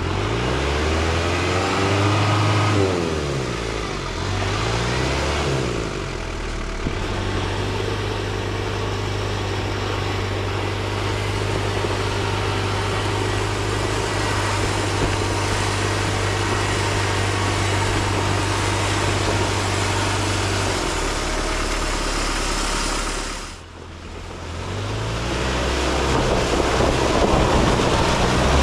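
Daihatsu Rocky 4x4's engine revving up and down several times while pushing through deep water and mud. It then holds a steady speed for about fifteen seconds, drops away briefly, and revs again near the end.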